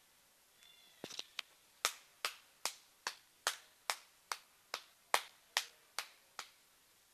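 A run of about a dozen sharp clicks at a steady beat of roughly two and a half a second, after a few uneven clicks about a second in.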